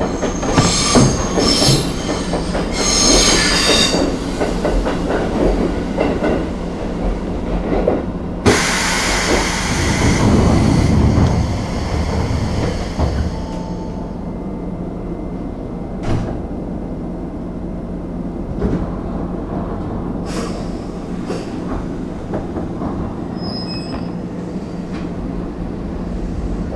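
Electric trains at a small station. High wheel squeal for the first few seconds as a red limited express runs past on the next track, a loud rush of air about eight seconds in, then the steady low hum of the standing Nagano Electric Railway 3500-series train, with a few knocks.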